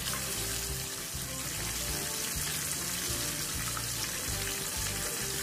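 Gram-flour-battered Bombay duck (loitta) fish pieces sizzling steadily as they deep-fry in hot oil in a kadai. Quiet background music runs underneath.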